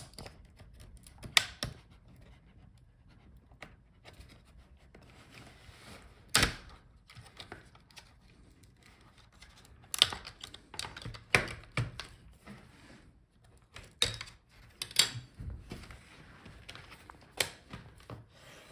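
Plastic clips of a laptop's LCD front bezel clicking and snapping as the bezel is pried off the display lid: a scattered series of sharp clicks, with the loudest near the middle and the second half.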